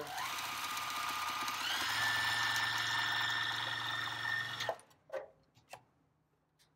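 Juki TL-2010Q straight-stitch sewing machine stitching stretchy fabric at a shortened stitch length. The motor whine climbs to speed in two steps, runs steadily for a few seconds, and stops about three quarters of the way through. A couple of light clicks follow.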